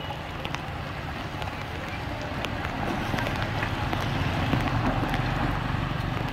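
Floodwater running into a street storm drain, with traffic passing on the wet road. A vehicle's engine rumble swells about halfway through.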